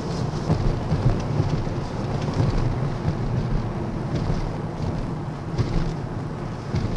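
Steady low rumble of a car driving, with tyre and engine noise heard from inside the cabin.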